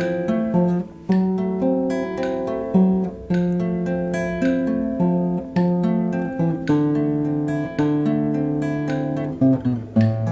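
Background music: an acoustic guitar picking notes and chords in a steady, unhurried rhythm, each note ringing out and fading before the next.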